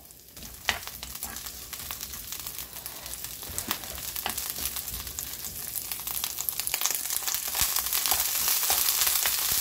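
Cut garlic scapes sizzling in hot oil in a nonstick wok as they are stirred with a spatula, with scattered clicks of the spatula against the pan. The sizzle grows steadily louder as the pan heats.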